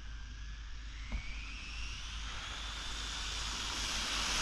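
Electric motor whine of a 1/14-scale Rlaarlo Croboll RC car running on 2S during a speed run, rising steadily in pitch and getting louder as the car speeds up.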